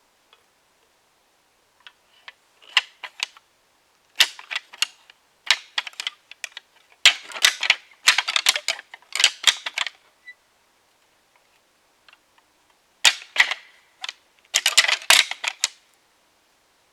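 Deer antlers rattled together to imitate two bucks fighting: irregular runs of sharp clacking and clicking with short pauses between them, the longest and loudest run in the middle.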